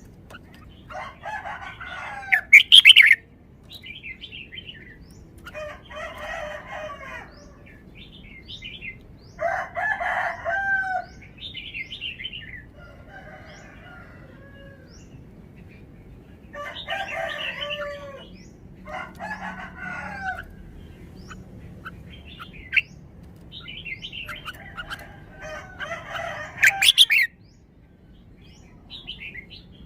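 Red-whiskered bulbul singing: a string of short, warbled song phrases repeated every few seconds. Two sharp loud clicks stand out, one about three seconds in and one near the end.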